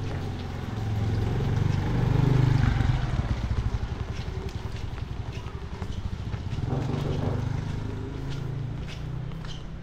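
A motorcycle engine running as it passes close by, loudest about two and a half seconds in and fading, with a weaker second swell around seven seconds.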